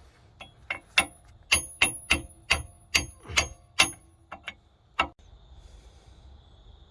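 Hammer striking metal: about a dozen sharp, ringing blows, roughly two a second, stopping about five seconds in.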